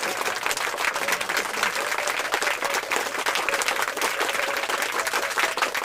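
Dense, continuous crackling rustle of nylon tent fabric handled close to the microphone.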